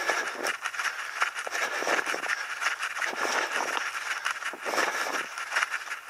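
Running footsteps crunching on a gravel track: a continuous, uneven crunching with many short scrapes and irregular louder steps.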